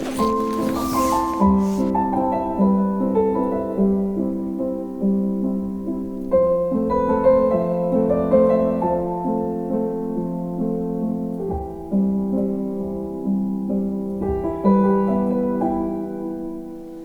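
Soft, slow solo piano background music with held notes, fading out near the end.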